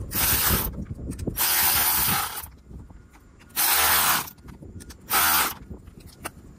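Ratchet tightening a battery terminal nut, in four short runs of rapid ratcheting with brief pauses between, the second the longest.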